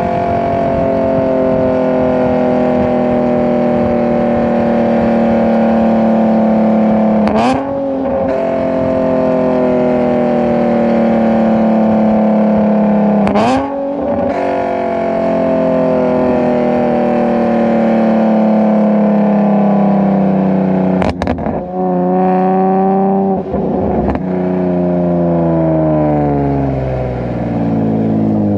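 Nissan 370Z's 3.7-litre V6 with PPE aftermarket headers, engine-braking with the revs slowly falling. A quick gear change breaks it four times, each followed by a jump in pitch, as in a series of downshifts. Near the end the revs drop away quickly.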